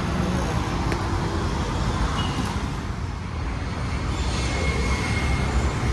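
Steady road traffic noise, with vehicle engines running and passing.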